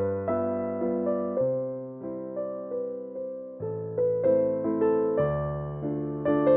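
Background piano music: notes struck one after another, each fading away.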